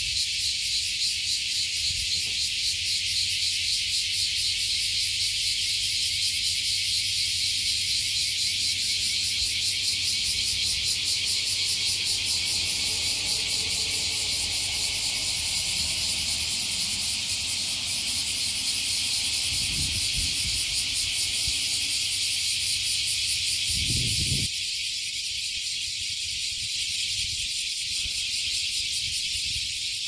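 A chorus of many cicadas singing together in a dense, continuous high-pitched buzz that pulses finely. It drops a little in loudness about two-thirds of the way through.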